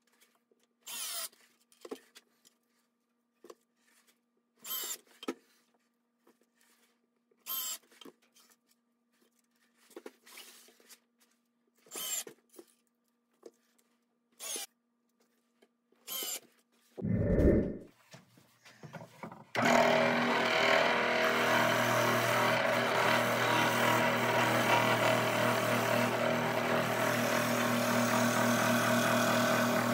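Cordless drill driving screws through steel floor flanges into a wooden tabletop, in short runs every two to three seconds. After a low thump, a homemade disc sander driven by an electric motor starts about two-thirds of the way in and runs steadily with a low hum, the wooden top's edge held against the sanding disc.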